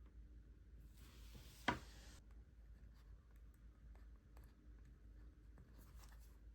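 Faint pen scratching on paper in a journal, with small clicks, a brief rustle and one sharp tap about a second and a half in.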